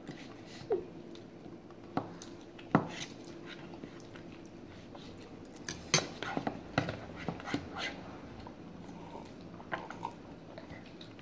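Eating sounds of cup instant noodles: chewing and slurping, with scattered sharp clicks of chopsticks and a fork against the noodle cups, coming thick and fast for a couple of seconds in the middle.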